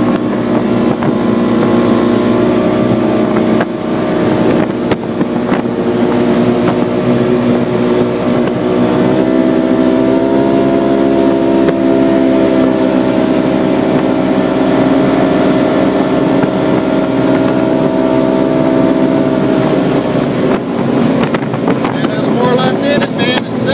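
Polaris RZR XP 900 HO side-by-side's parallel-twin engine with its SLP exhaust, running under load as the machine drives across sand. The engine note rises a little about nine seconds in, holds a steady pitch through the middle, and shifts again near the end.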